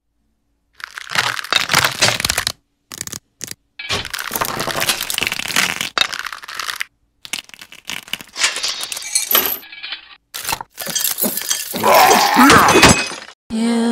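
Cracking and clattering sound effects of skeleton bones, coming in a string of separate bursts with short silences between, loudest near the end.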